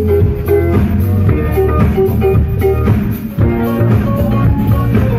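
Live band music at a pop concert, heard loud through the hall's sound system, with a steady bass line under drums.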